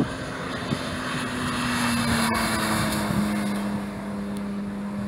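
2018 Porsche 911 GT3's naturally aspirated flat-six engine running as the car drives past on the circuit, a steady note that drops slightly in pitch, loudest about two seconds in.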